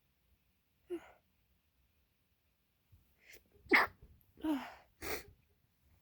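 A woman sneezing: a short catch of breath about a second in, then a quick run of sharp sneezes from about three seconds in, the loudest just before the four-second mark.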